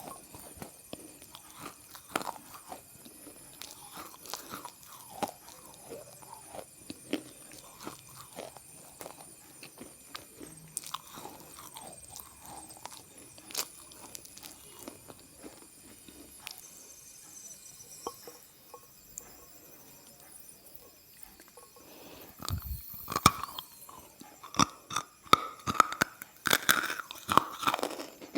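Repeated soft crunching and crackling, many small crunches in a row, growing louder and denser near the end.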